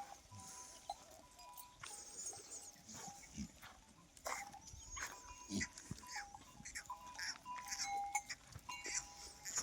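Goats browsing on a tree: branches and leaves rustle and crackle in short, irregular clicks, with faint steady tones coming and going.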